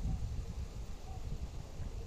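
Wind buffeting the microphone: a gusting low rumble.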